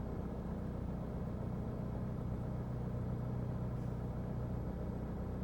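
Pontiac car engine idling with a steady low hum; no beeps are heard from the plugged-in Snapshot device.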